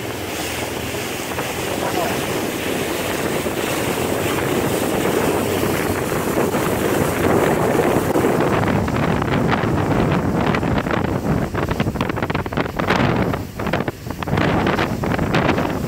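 Motorboat running at speed while towing a water-skier: a steady rush of wind and water. From about halfway, wind buffets the microphone in gusts.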